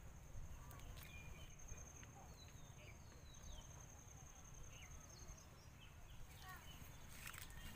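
Faint outdoor ambience: a steady high-pitched insect trill that breaks off now and then, with short bird chirps scattered through it.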